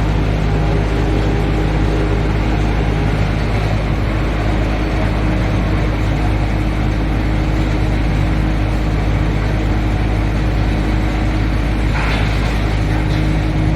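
SHD2113 wood chipper running, a loud, steady machine hum with a deep drone. A short rougher burst of noise comes about twelve seconds in.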